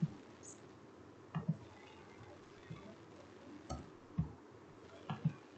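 Computer mouse and keyboard clicks while editing on a PC: about half a dozen short sharp clicks, several in quick pairs, over a low room hiss.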